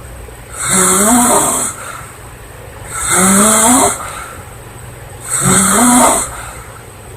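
Woman snoring loudly: three snores about two and a half seconds apart, each a second-long breathy buzz that rises slightly in pitch.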